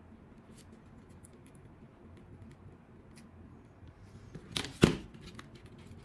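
Hand-work handling noise: scattered faint clicks, then a brief rustle ending in one sharp click about five seconds in.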